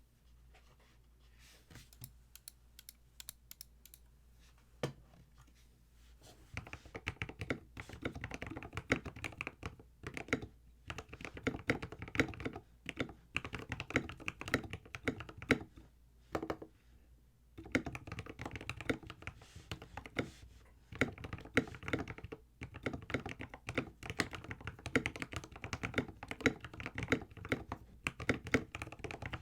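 Epomaker TH66 mechanical keyboard being typed on: a few scattered single keystrokes for the first six seconds or so, then fast, continuous typing with a few short pauses.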